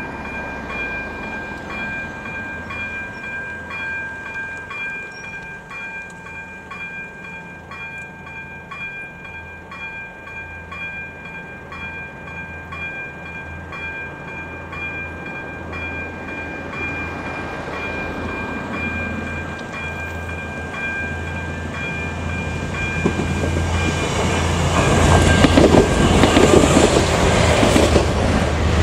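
AŽD ZV-02 electronic level-crossing bell ringing in steady, evenly repeated strokes. Near the end the bell stops as a train's rumble builds and becomes loud.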